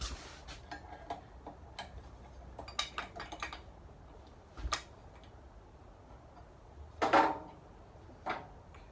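Screwdriver working at the ratchet clutch cover on a Briggs & Stratton engine: scattered metal clicks and scrapes, with a knock near the middle and a louder metal clatter about seven seconds in.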